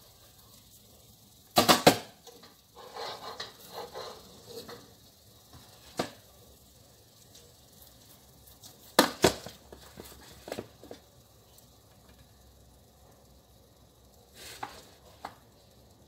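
A wooden spatula scooping sticky rice cake out of a wok into a plastic container: irregular knocks and scrapes against the pan and the container. The loudest knocks come about two seconds in and again about nine seconds in.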